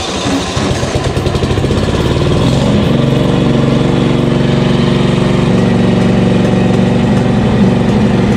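Briggs & Stratton Vanguard 16 hp V-twin engine on a Toro Proline walk-behind mower, running just after being jump-started off a dead battery. It picks up over the first few seconds and settles into a steady run.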